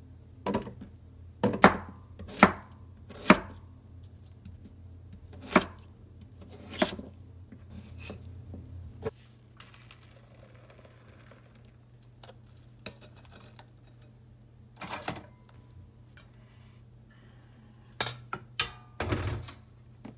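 Kitchen knife chopping peeled potatoes into chunks on a wooden cutting board: six sharp, unevenly spaced chops in the first seven seconds. After that it is quieter, with faint pouring of blended potato into a metal strainer and a few knocks near the end.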